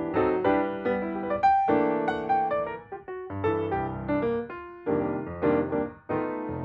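Background piano music: a run of struck notes, each fading after it is played, with short breaks about halfway through and near the end.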